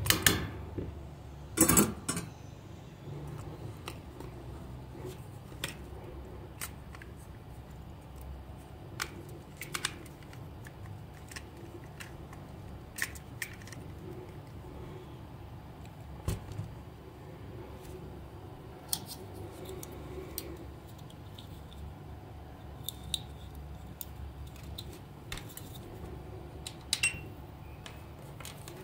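Handling noise at a workbench: scattered small clicks and taps of plastic toy parts and wires being handled, with two louder clatters within the first two seconds.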